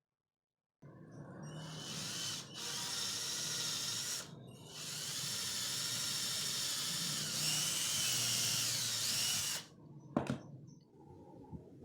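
A small electric motor, power-tool-like, running with a high whine in three stretches with two brief breaks, then stopping about ten seconds in, followed by a single click.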